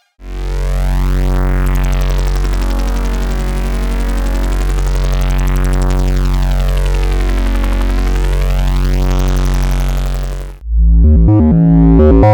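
A Make Noise XPO analog synthesizer oscillator holding one low droning note whose tone slowly sweeps brighter and back, about twice. About ten and a half seconds in, the drone stops and a louder, rhythmic pulsing synth bass pattern begins.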